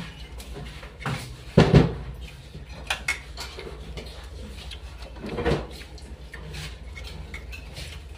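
Clinks and knocks of plates and utensils on a table as people eat, a few at a time, the loudest about a second and a half in, over a steady low hum.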